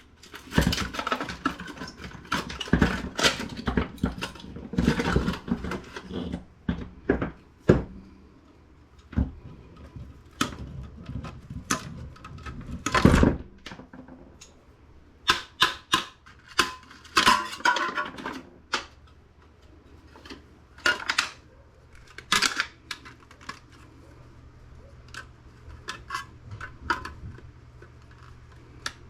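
Hand tools and loose metal computer parts clicking, knocking and clattering as a desktop PC is taken apart, busy in the first half and sparser later.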